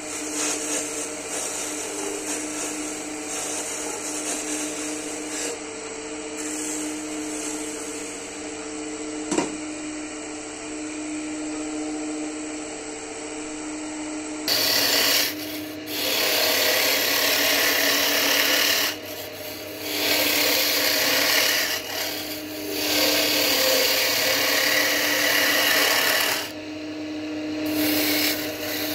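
Wood lathe running with a steady hum while a turning tool cuts the spinning wooden blank. From about halfway the cutting gets much louder, in long passes with short pauses between them.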